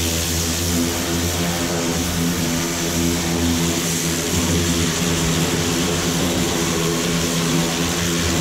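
Pressure washer running: the rotating-nozzle jet hisses as it sprays onto a truck's steel chassis frame, over a steady droning hum.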